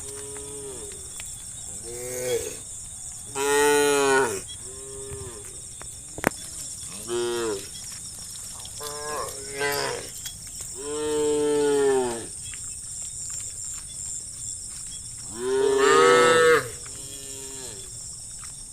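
Several cattle mooing over and over, calls of different pitch and length overlapping, the loudest about four seconds in, around eleven seconds, and a long one near the end. A single sharp click about six seconds in, over a steady high hiss.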